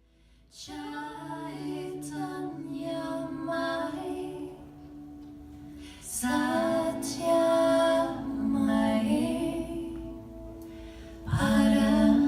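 A woman singing a slow, held chant melody over a sustained drone, with no clear words. It starts just after a brief silent cut and gets louder about six seconds in and again near the end.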